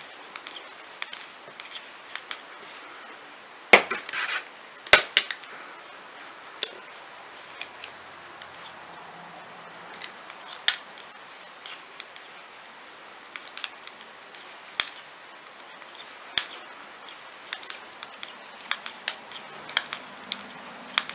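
Metal circular knitting needles clicking and tapping against each other as stitches are knit, in irregular sharp clicks, the loudest cluster about four to five seconds in.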